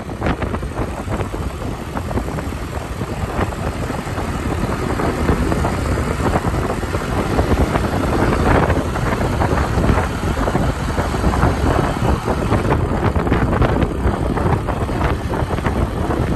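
Engine of a moving motor vehicle, with a steady rush of wind buffeting the microphone.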